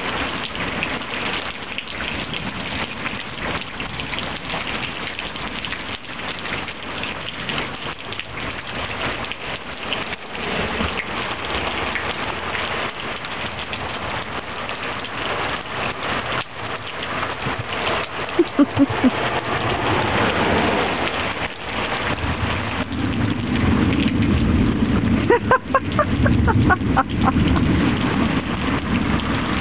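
Heavy rain pouring steadily, drumming on a fabric umbrella overhead, with a low rumble of thunder building over the last several seconds. A few brief sharp sounds stand out near the end.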